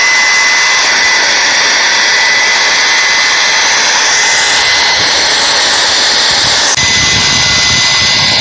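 Hair dryer running on high, a steady rush of air with a thin high motor whine over it. Nearly seven seconds in the sound changes abruptly, with more low rumble and less hiss.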